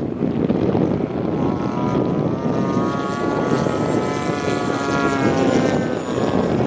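Miniature turbine engine of a radio-controlled T-1 model jet running as the model taxis: a steady rushing jet noise, with a thin high whine coming in about halfway.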